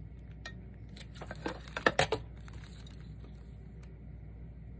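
Scissors snipping through cheesecloth: a few quick, sharp snips between about one and two seconds in.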